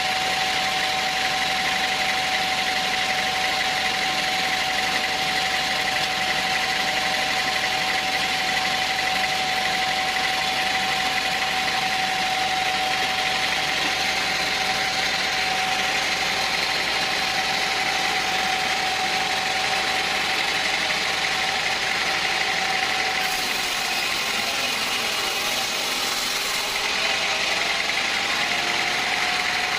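Sawmill machinery running steadily: a loud, even hiss with a constant whine. About two-thirds of the way through, the whine sags slightly in pitch for a few seconds before settling back.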